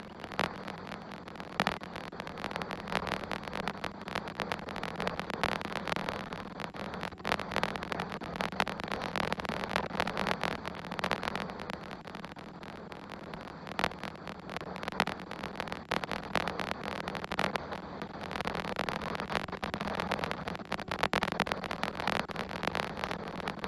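Strong wind gusting across the camera's microphone: a rushing hiss that swells and eases, with frequent crackles and pops, over a steady low hum.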